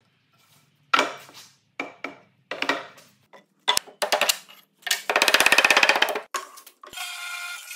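Heavy wooden parts knocking and clattering as they are set down and fitted together on a workbench, in four or five separate sharp knocks with a short ringing tail each. A rapid run of even clicks, about fifteen a second, follows for just over a second, and background music starts near the end.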